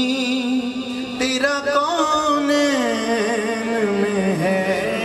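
Male qawwali singer drawing out a verse in long, held notes, bending and ornamenting the pitch as he goes.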